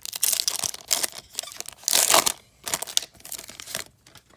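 Wrapper of a 2018 Topps WWE trading card pack being torn open and crinkled, in irregular rustling bursts, the loudest about halfway through.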